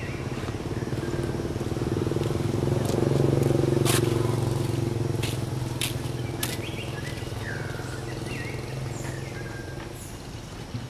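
A motor vehicle engine passing by, growing louder to a peak about three seconds in and then slowly fading. A few sharp clicks come around the middle.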